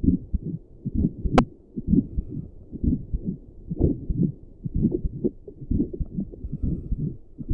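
A person's resting heartbeat picked up by a doppler and a stethoscope together: low pulsing beats about once a second, a little over 60 a minute. A single sharp click sounds about a second and a half in.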